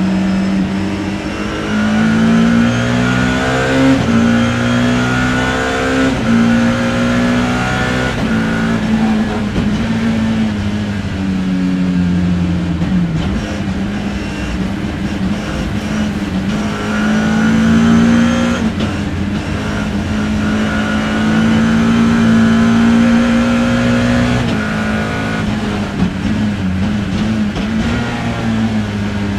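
BMW E30 M3 race car's four-cylinder S14 engine, heard from on board, revving up and down under hard acceleration and braking, with the pitch breaking at several gear changes and holding steady on a long full-throttle stretch in the middle.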